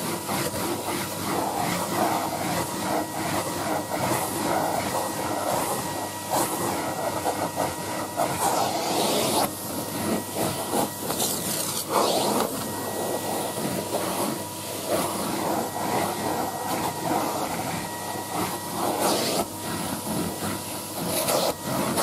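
Numatic Henry HVR200A vacuum cleaner running steadily, its nozzle sucking along carpet: a continuous rush of air with a faint steady whine, and short louder rushes now and then as the nozzle shifts.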